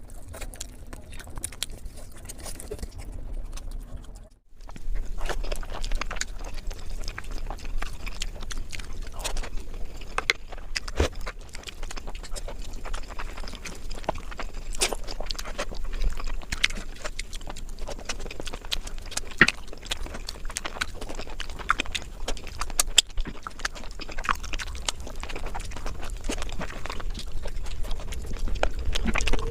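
Close-miked eating sounds: a person chewing a mouthful of biryani rice with egg and gravy, with irregular wet mouth smacks and clicks. The sound cuts out briefly about four seconds in.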